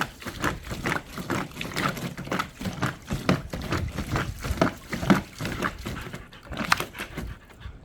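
Dogs splashing about in a dog pool: a run of irregular sharp splashes, thinning out near the end.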